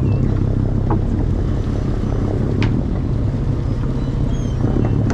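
Steady low drone of an idling boat engine, with wind on the microphone and a couple of light knocks about one and two and a half seconds in.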